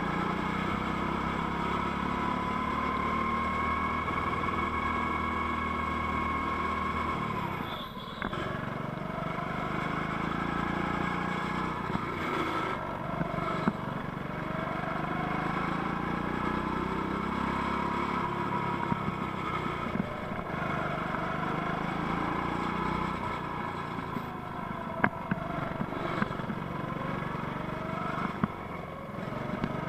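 Go-kart engine heard from the driver's seat, its revs rising and falling as the kart is driven round the track, with a sharp drop about eight seconds in. A few short sharp knocks come near the end.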